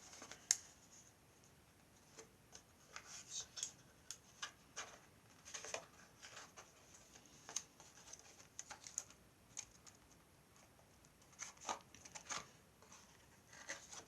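Quiet, irregular ticks and scratches of mylar spider legs and sellotape being handled and readjusted, the sharpest click about half a second in.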